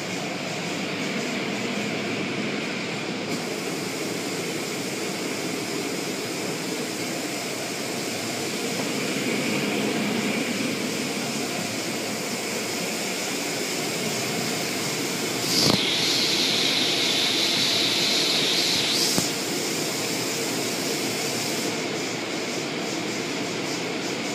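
Car wash equipment running, a steady rushing noise. About fifteen seconds in, a louder high hiss starts with a click and cuts off sharply after about three and a half seconds.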